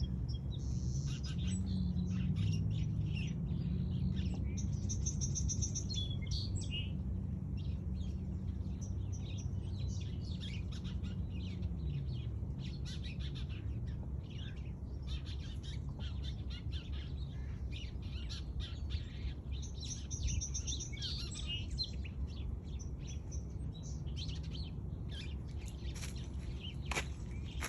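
Small birds chirping and trilling in quick, overlapping short calls, with a steady low hum underneath.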